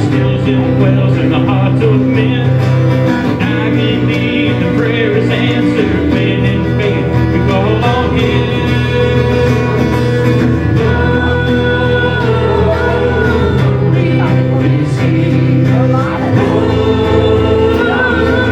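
Worship music: a band with guitar, and singing.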